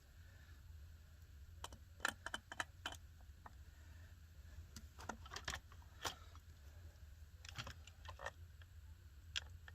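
Scattered light clicks and clinks of small metal chainsaw parts being handled, in a few short clusters, over a faint steady low hum.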